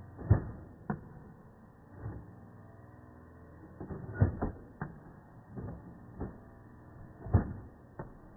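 Nerf Stryfe flywheel blaster firing darts, played back slowed down: a string of dull, low knocks, three of them much louder than the rest, over a low steady hum.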